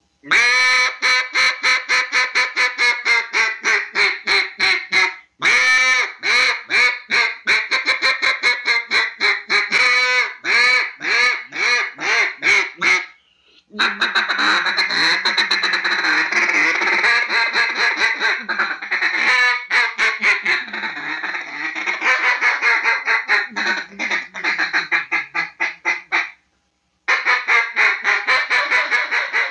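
Mallard hen-style quacking in long runs of rapid quacks, about four to five a second, each run starting high and falling in pitch. Partway through it turns into a denser, more continuous stretch of quacks and chatter, then breaks off briefly before the quacking resumes near the end.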